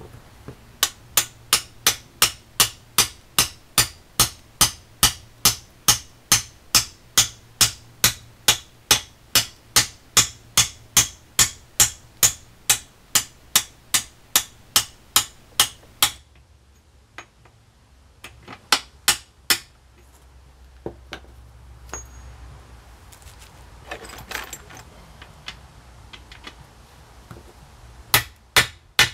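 Hammer blows on a steel drift driving a new kingpin down into the bushes of a Citroen 2CV front suspension hub, metal on metal at a steady pace of about two blows a second. The hammering stops about 16 seconds in, and a few scattered knocks follow later.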